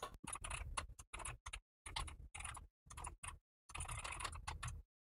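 Computer keyboard typing: quick runs of keystrokes broken by short pauses.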